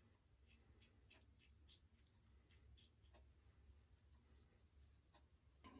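Near silence, with faint, scattered scratchy ticks.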